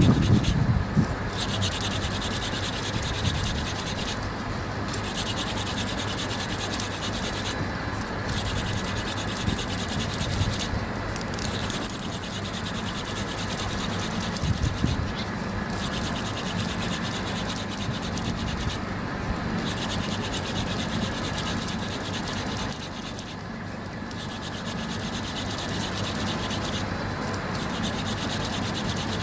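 Hand-drill fire-making: a wooden spindle with a deutzia (utsugi) tip spun between the palms in the notch of a cedar hearth board, giving a steady scratching, grinding friction. It breaks off briefly about every three to four seconds as the hands slide back up the spindle.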